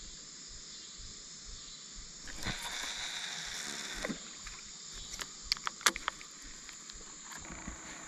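Insects droning steadily at a high pitch. In the middle a fishing reel's line whirs out on a cast, and a few sharp clicks follow a little later.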